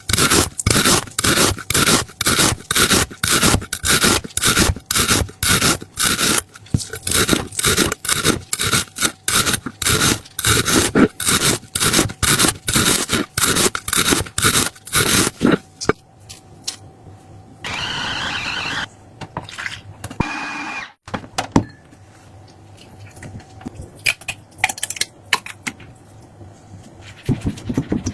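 Rhythmic scraping of a kitchen utensil, about two to three strokes a second, which stops about fifteen seconds in. Quieter handling clicks and a short hissing rush follow.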